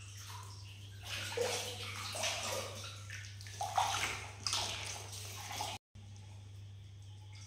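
Water splashing and sloshing in a bath in irregular bursts, cutting off abruptly about six seconds in, with a steady low hum underneath.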